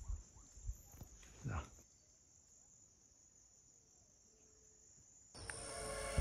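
Steady high-pitched insect trilling with a short falling animal call about a second and a half in. Both stop at about two seconds, and music comes in near the end.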